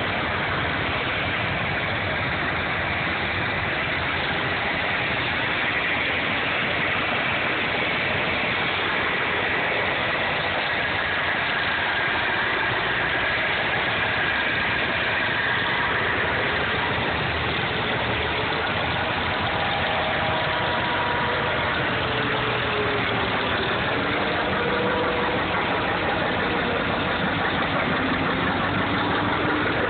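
Several antique farm tractors, among them a Farmall and a 1959 John Deere 630, run at low speed as they drive past one after another. The engine sound is steady throughout.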